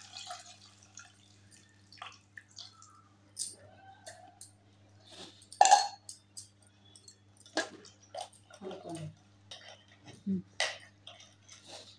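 Tamarind water poured from a steel tumbler into a steel bowl of chicken blood, then hand mixing with wet sounds and several sharp clinks of steel vessels, the loudest about halfway through.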